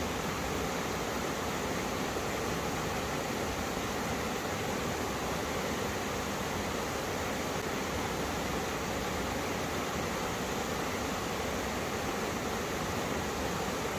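Two mountain streams rushing over rocks where they meet: a steady, unbroken wash of flowing water.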